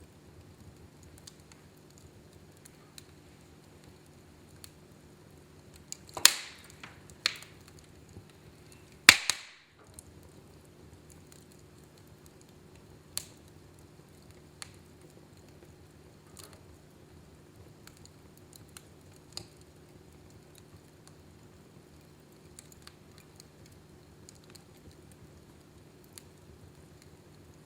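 Fire burning in a fireplace, crackling with scattered sharp pops, the two loudest about six and nine seconds in. A faint steady hum runs underneath.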